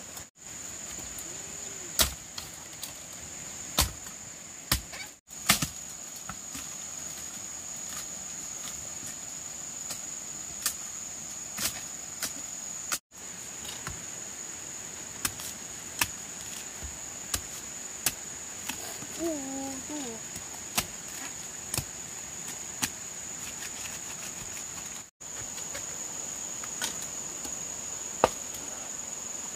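Insects chirring in a steady high drone, with irregular sharp chopping knocks every second or two.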